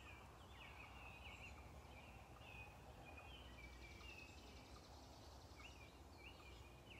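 Faint wild birdsong: a run of short, high chirping notes repeated in quick succession, pausing briefly about halfway through and then resuming, with a faint rapid trill in the pause, over quiet outdoor background noise.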